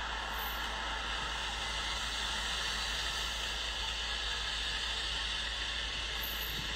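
Steady hiss of background noise, even and unchanging, with no distinct events.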